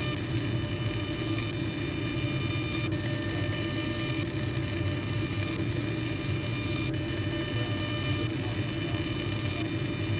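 Laser engraving machine running steadily while deep-engraving a steel gun barrel: an even hum and fan-like hiss with several thin, steady high whining tones, and a few faint ticks along the way.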